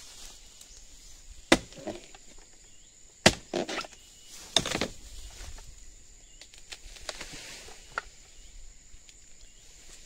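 Blade chopping into oil palm fronds: three sharp chops a second or two apart, each followed by rustling leaves, then a lighter knock near the end.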